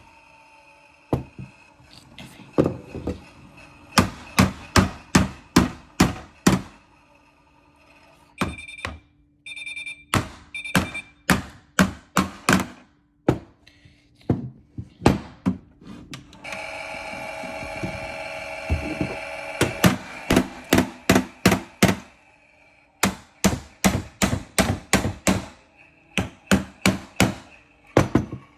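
Toy washing machine loaded with rocks running off balance: quick runs of hard knocks, two or three a second, over a steady low motor hum. A few short electronic beeps come about a third of the way in, and a buzzing electronic tone lasts about three seconds past the middle.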